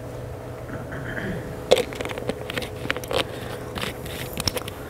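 Plastic water bottle being handled and its cap screwed back on: a few scattered crinkles and clicks over a steady low hum.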